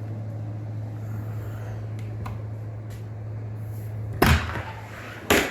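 A steady low hum, then a door knocking open and shut twice, about four seconds in and again near the end, most likely the door of the cooler where the chilled meat is kept.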